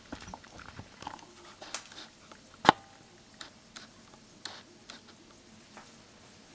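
Quiet, scattered light clicks and taps, with one sharper, louder clink about two and a half seconds in that rings briefly.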